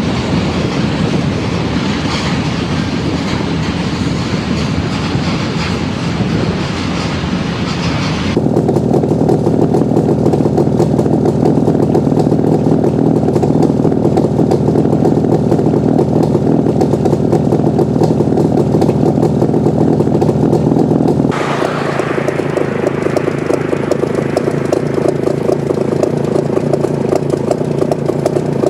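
1988 ČZ 350 two-stroke twin-cylinder motorcycle engine running at a steady speed. About 8 s in the sound abruptly turns louder and duller, and about 21 s in it turns brighter again.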